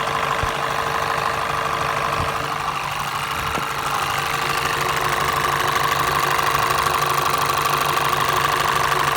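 Car engine idling with an extraneous noise from around the turbocharger and vacuum pump: a steady tone over the engine sound, a little louder after about five seconds.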